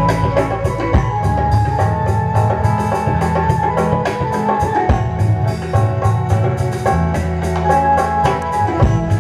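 Live band music over a stage sound system, with a drum kit keeping a steady beat under sustained instrumental tones and bass.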